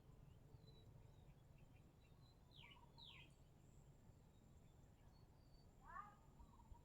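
Faint outdoor ambience with a few bird calls: two quick falling chirps about a third of the way in and another short call near the end.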